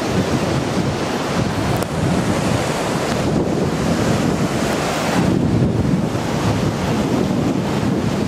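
Storm-surge high tide: rough sea surging and breaking in continuous white noise, with water washing foam over the seawall. Wind is buffeting the microphone.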